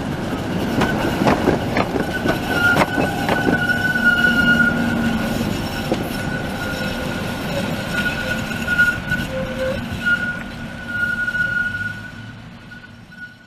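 A pair of coupled Konstal 105N-type trams rolling past and away, their wheels clattering over the rail joints in the first few seconds, with a high, steady wheel squeal. The sound fades out near the end as the trams move off.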